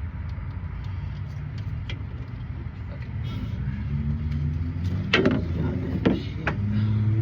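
An engine running steadily with a low hum, and three sharp knocks about two-thirds of the way through.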